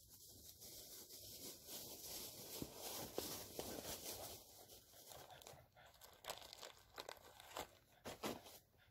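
Footsteps shuffling through dry leaf litter close to the microphone: a run of rustles and crunches, with sharper crackles near the end.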